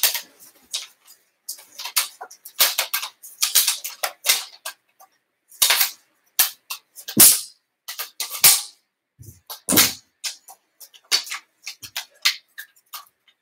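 Agility ladder being untangled by hand: its plastic rungs clack against each other and its straps rustle in irregular bursts, with a couple of heavier knocks about seven and ten seconds in.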